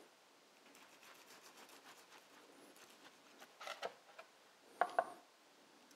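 Chef's knife sawing through the crunchy deep-fried karaage crust of a stuffed chicken roll, with faint crackling strokes, a louder crunch about three and a half seconds in, then two sharp knocks of the blade on the cutting board near the end.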